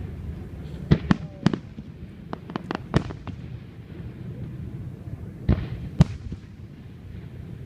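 Aerial fireworks bursting: a quick run of sharp bangs in the first three seconds, then two more at about five and a half and six seconds in, over a steady low rumble from the show.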